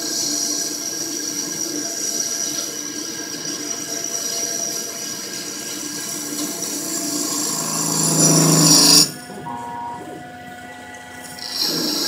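Syil EX250 CNC lathe cutting an aluminium-copper alloy part: the spindle running with a high whine and the hiss of the cut. The cut grows louder about eight seconds in, drops away suddenly about a second later, and comes back near the end.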